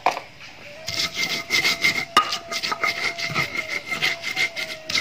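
A round grinding stone rubbed back and forth over a flat stone slab (batu giling), stone grating on stone as it crushes ginger and turmeric with salt into a wet paste. The strokes come quick and even, about four or five a second, starting about a second in.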